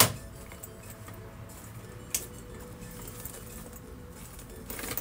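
Quiet background music with held tones, with a sharp click at the very start and another short click about two seconds in.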